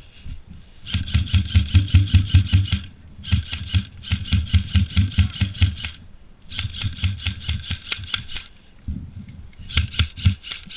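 An airsoft rifle firing four long full-auto bursts of rapid shots, each about two seconds long, with short pauses between them.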